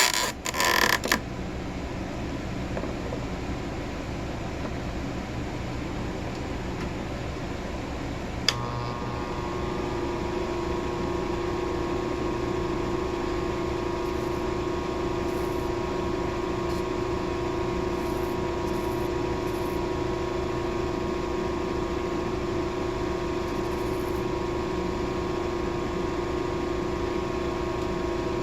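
Stone-grinding machine: a few clicks at the start, then steady running; about eight seconds in a sharp click, after which a steady multi-tone hum sets in and holds.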